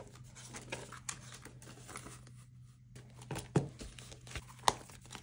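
Paper banknotes and an envelope being handled: soft rustling and crinkling with a few light taps, the sharpest about three and a half and four and a half seconds in.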